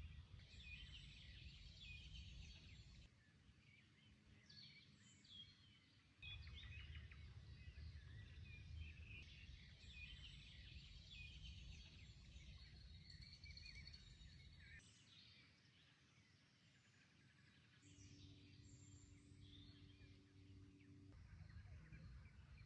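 Faint songbirds chirping and trilling over a low rumble of outdoor background noise, with the sound changing abruptly several times where clips are joined. A short steady hum joins in about three-quarters of the way through.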